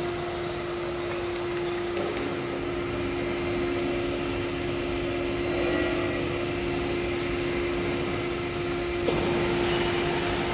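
CNC stone engraving machine running, a steady whine over a noisy hiss, with a second lower tone joining about two seconds in and dropping out, and the sound shifting abruptly, about nine seconds in.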